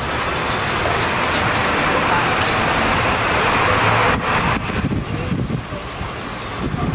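City street traffic noise mixed with voices: a loud, steady rush that drops off suddenly about four seconds in.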